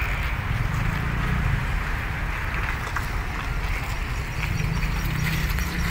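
Steady low rumble of idling engines from cars and trucks queued to drive onto a roll-on/roll-off ship, over a haze of harbour noise.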